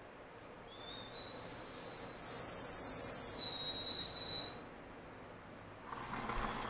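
A high, steady whistle that slides up at the start, holds about three and a half seconds with a slight waver midway, then stops abruptly.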